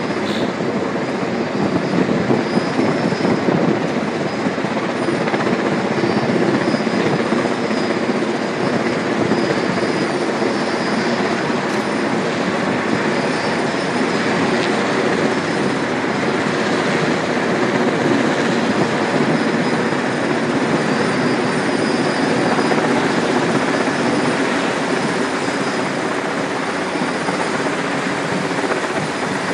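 Helicopter's rotor and engine running steadily, a dense unbroken sound with a faint high steady tone above it.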